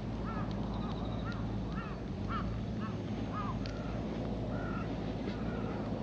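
A rapid series of short, high-pitched animal calls, about two a second, each call rising and falling; the later ones are a little longer and flatter.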